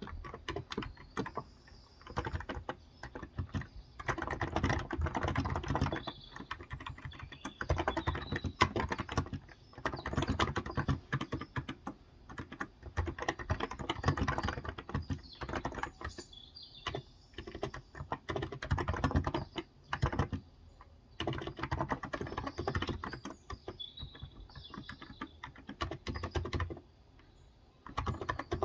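Typing on a Cox Endeavour electro-capacitive 35 g tenkeyless keyboard: runs of rapid keystrokes a few seconds long, broken by short pauses. Birds chirp faintly in the background.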